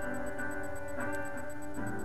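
Acoustic guitar being played, chords ringing one after another with a new chord struck about every half second to second.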